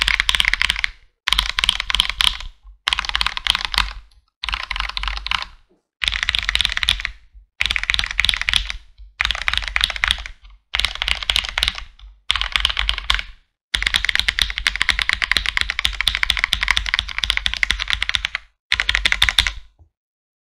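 Fast typing on a Hello Ganss GS87D tenkeyless mechanical keyboard with lubed Cherry MX Red linear switches: rapid clacking keystrokes in short bursts of about a second, cut by brief silences, with one longer run of about five seconds near the end.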